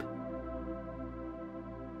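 Quiet ambient background music of steady held tones that do not change.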